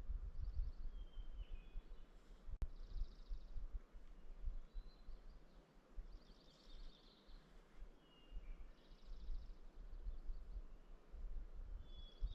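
Songbirds singing: short, rapid trilled phrases repeat every two to three seconds, mixed with a few brief chirps. A low wind rumble runs on the microphone, and there is a single sharp click about two and a half seconds in.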